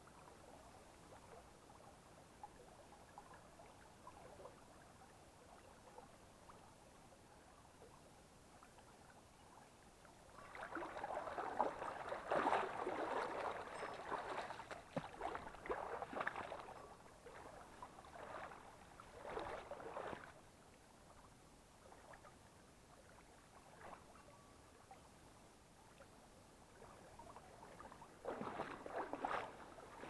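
Shallow forest stream running faintly, then, from about a third of the way in, irregular splashing and sloshing of someone wading through the water, in a run of bursts lasting several seconds. A shorter burst comes near the end.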